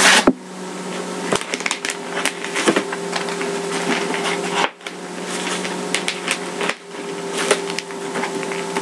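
Plastic wrap crinkling and crackling in a dense run of small clicks as it is worked off a small product box, with a couple of brief pauses. A steady low hum runs underneath.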